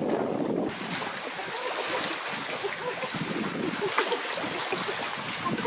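Small waves lapping and splashing against shoreline rocks, with wind rumbling on the microphone, heavier for the first moment. A sharp knock about four seconds in.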